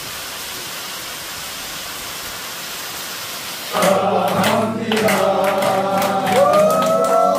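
A small waterfall rushing over rock ledges, a steady hiss, cut off abruptly about three and a half seconds in by a group of men singing together loudly and clapping along.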